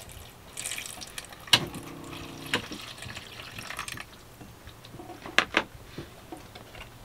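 Water from a galley sink tap running into a plastic tub, with a few sharp clicks and knocks, two of them close together about five and a half seconds in.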